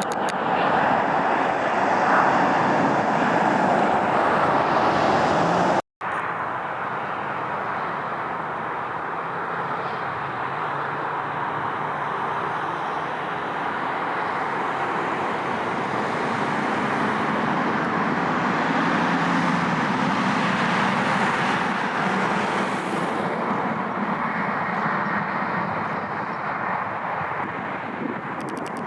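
Jet airliner engines heard as a steady, even rushing noise, with a sudden brief dropout to silence about six seconds in, after which the noise carries on a little quieter.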